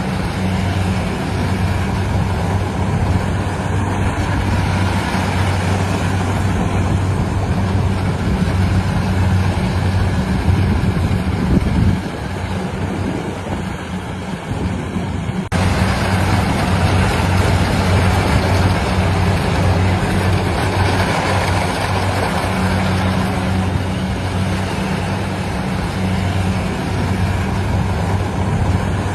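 Engine of a rice-harvesting machine running steadily with a low hum. The sound dips briefly about twelve seconds in and changes abruptly a few seconds later.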